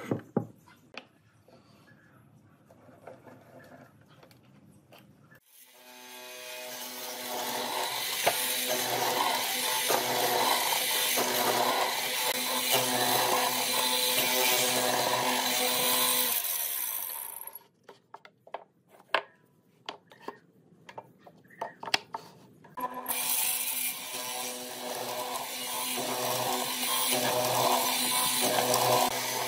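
Hollow-chisel mortiser running and cutting a square mortise into a wooden block, in two spells of several seconds each, the first starting about five seconds in. Between them come scattered clicks and knocks, and there is a single knock near the start.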